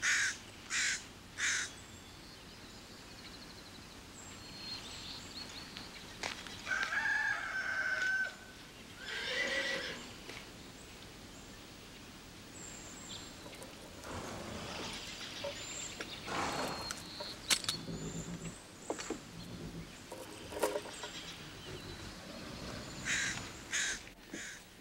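Farmyard sounds: a rooster crowing, a horse whinnying and small birds chirping, after three short loud sounds right at the start.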